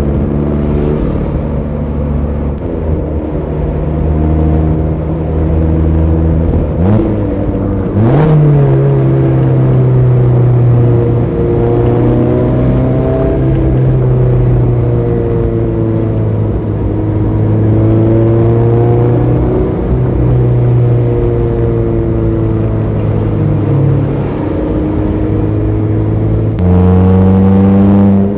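Mazda ND Roadster (MX-5 Miata) inline-four engine pulling under load with a manual gearbox. A gear change about seven seconds in drops the note lower, it then drones with a pitch that rises and falls, and near the end it jumps suddenly louder and higher.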